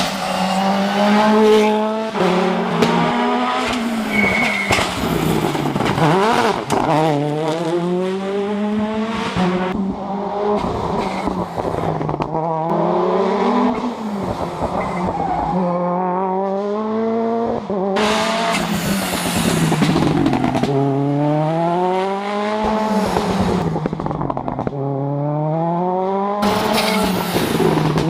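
Toyota Yaris WRC rally car's 1.6-litre turbocharged four-cylinder engine, its revs rising and falling over and over as it drives hard through gear changes and corners. Two loud rasping bursts come about two-thirds through and again near the end.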